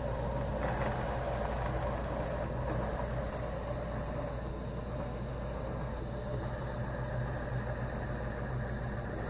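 Pfaff Creative 1475 CD electronic sewing machine running steadily, a continuous motor hum without pauses.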